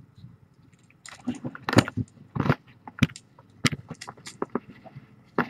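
A run of irregular sharp clicks and knocks as kittens knock about a clear plastic bowl and a box toy.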